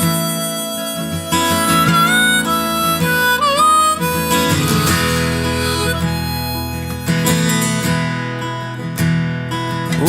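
Background music: the instrumental intro of a country song, a harmonica melody with bending notes over strummed acoustic guitar.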